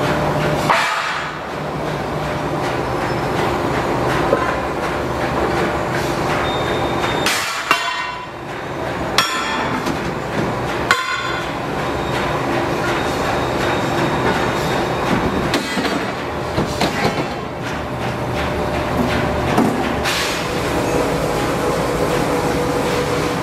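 Heavy steel rail pieces clanking against each other and the floor as they are handled, several sharp ringing clanks over a steady workshop machinery hum.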